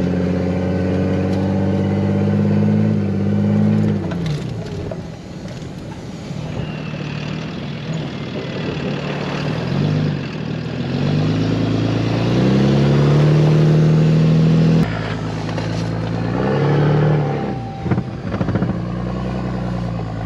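Off-road wrecker truck's engine pulling under load, its pitch climbing, falling back, then climbing again as it accelerates and eases off. The sound changes abruptly about three-quarters of the way through.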